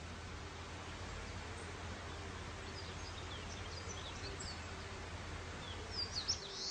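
Steady background hiss and low hum, with faint quick high chirps scattered through the second half that gather into a short cluster just before the end.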